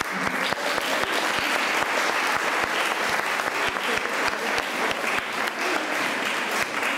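A large group of children applauding, many hands clapping at once in steady, sustained applause.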